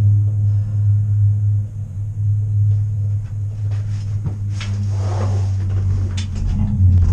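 Steady low rumble and hum of a moving vehicle's cabin, with a few knocks and a brief rattle around the middle.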